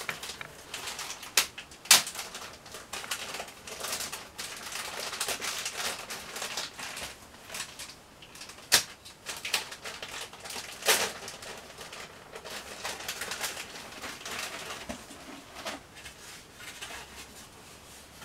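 Clear plastic bag crinkling and tearing as foam model-aircraft wing parts are worked out of it, with a few sharp crackling snaps.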